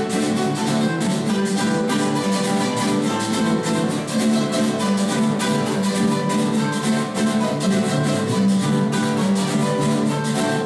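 Carranga music played instrumentally on four acoustic guitars, with strummed rhythm under a plucked lead line, and a charrasca scraper keeping a regular beat.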